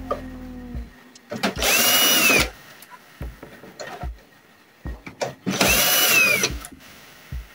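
Cordless drill-driver backing out the screws that hold a laser printer's fuser unit. The motor winds down just at the start, then runs twice in bursts about a second long and about four seconds apart, each spinning up to a high whine and winding down. Small clicks and knocks of handling come between.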